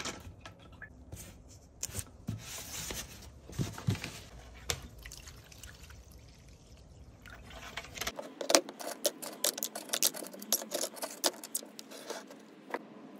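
Solvent (extraction naphtha) poured from a plastic jerrycan through a hose into a small plastic box of derailleur parts, trickling and splashing. After about eight seconds it changes to a fast clatter of small metal parts rattling and sloshing in the handled box.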